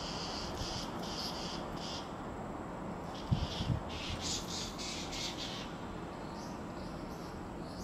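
Insects chirping in quick, even trains of high-pitched pulses, with two dull booms of distant fireworks about three seconds in.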